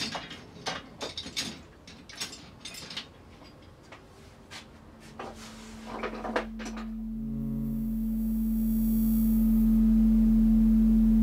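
A string of short knocks and clicks of wood and metal, then a steady low drone that fades up from about five seconds in and holds, the opening of an ambient music score.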